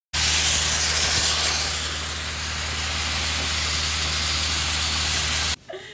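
Sandblaster nozzle blasting abrasive at a riveted metal boat hull, stripping its paint: a loud, steady hiss with a steady low hum beneath it, cutting off abruptly near the end.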